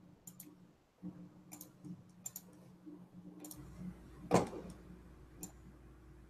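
Scattered computer mouse and keyboard clicks over a faint steady hum, with one louder knock a little past four seconds in.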